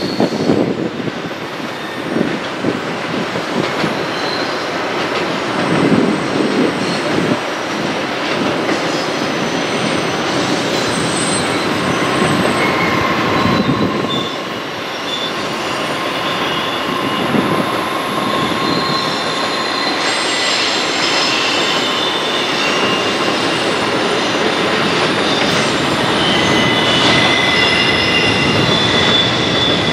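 Double-stack intermodal freight train's cars rolling steadily through a curve, the steel wheels squealing against the rail in thin high tones over the rumble of the train. The squealing grows more frequent in the second half.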